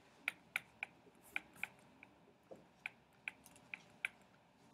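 About a dozen short, sharp clicks and taps at an uneven pace of roughly two or three a second, from a digital pen being used to handwrite working onto the computer screen.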